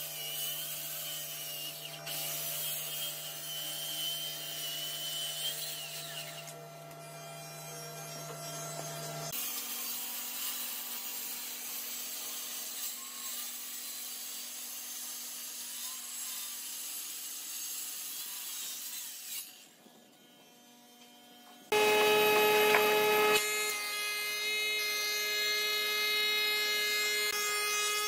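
Handheld circular saw cutting through a thick red hardwood slab, running with a steady whine, with abrupt changes in its sound about a third of the way in and two-thirds of the way in. After a short quieter lull, a wood planer starts up, louder, with a strong steady hum.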